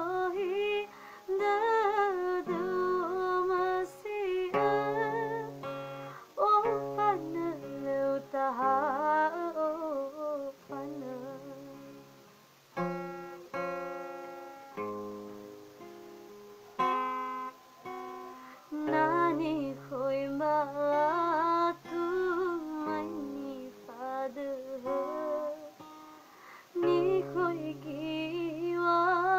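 A woman singing a slow song with strong vibrato, accompanied by guitar, in phrases separated by short pauses.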